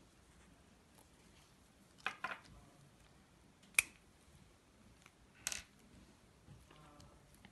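Small sharp clicks and a glassy clink as a glass medicine ampoule, a plastic syringe and its needle cap are handled and set on a table while the syringe is loaded: a rattle of clicks about two seconds in, one sharp ringing clink just before four seconds, and another click about five and a half seconds in.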